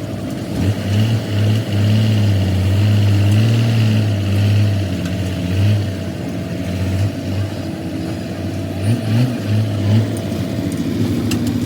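Vehicle engine running, its speed rising and falling a little.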